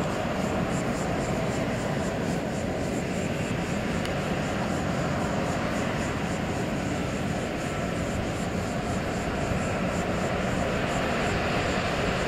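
Steady jet noise from an Airbus A340-600's four Rolls-Royce Trent 500 turbofans as the airliner slows on its landing rollout, with a faint high whine over it.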